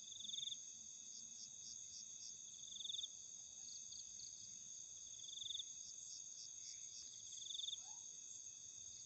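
Night insects chirring steadily, with a short buzzing trill that comes back about every two and a half seconds and quick clicking pulses in between.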